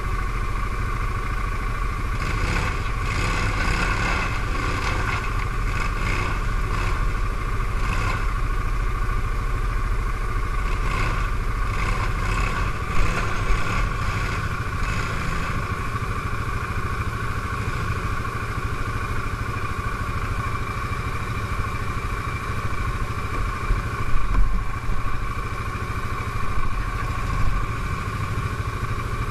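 CFMoto X5 ATV engine running steadily at low speed. Clattering and scraping come and go from about two seconds in to the middle, and a few sharp knocks follow later on.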